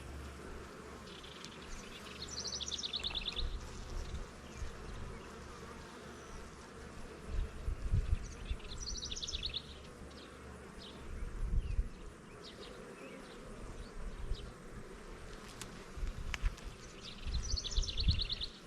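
Honeybees buzzing around an opened hive, agitated and defensive. Low rumbling thumps come a few times, loudest near the middle and end, and a short high trill sounds three times.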